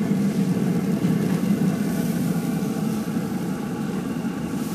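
REC TEC Mini pellet grill's combustion fan running at full heat with a steady low hum.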